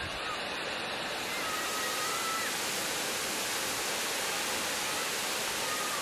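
Wide waterfall pouring over a long rock ledge: a steady rush of falling water, swollen by heavy rain, growing slightly louder about a second in.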